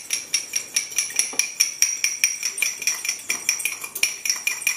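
A spoon stirring a marinade in a small ceramic ramekin, clinking rapidly and evenly against the side, about six strikes a second, each with a short bright ring.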